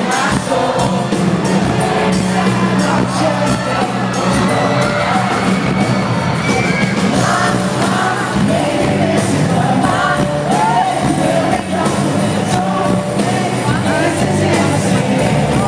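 Live pop-rock band playing loudly through a PA with a lead singer, crowd noise mixed in, echoing in a large hall.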